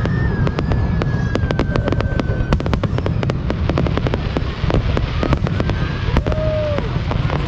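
Fireworks display going off: a dense run of rapid bangs and crackles over a continuous low rumble. A long high whistle falls slightly in pitch over the first couple of seconds, and a shorter, lower whistle comes near the end.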